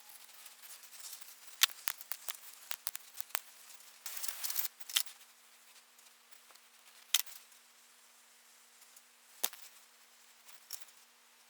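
Scattered sharp clicks and light taps, with a brief rush of hiss about four seconds in, as pattern pieces are worked loose and lifted out of a packed-sand casting mould.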